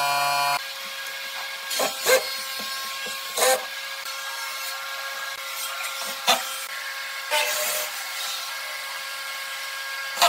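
Knocks of wooden parts being handled in a workshop: about eight sharp knocks a few seconds apart over a steady hum. A brief buzzing tone sounds at the very start.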